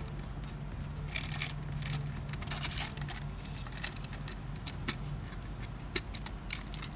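Hard plastic parts of a Tamiya Mini 4WD car clicking and rattling in the hands as the body is pressed and snapped onto the chassis. There are clusters of quick clicks in the first half, then single clicks spaced out toward the end.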